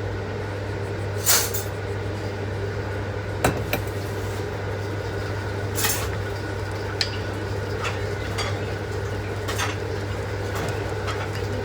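Kitchen utensils and dishes clinking and knocking while baking, about nine separate clinks spread out, over a steady low hum.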